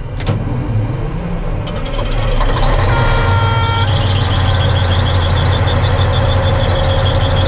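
Caterpillar D10R dozer's V12 diesel running and revving up, heard in the cab. A warning alarm sounds over it: a brief beeping chord about three seconds in, then a rapid high pulsing buzzer. This is the machine's low-voltage alarm, the sign that the alternator is not charging.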